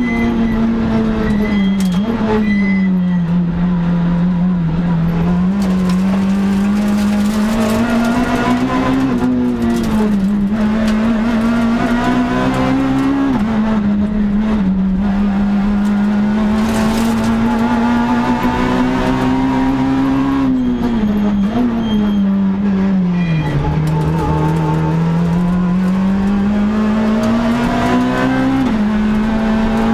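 Citroën C2 R2 Max rally car's engine heard from inside the cabin at full stage pace. The engine note climbs and falls over and over, with sudden jumps in pitch at each gear change.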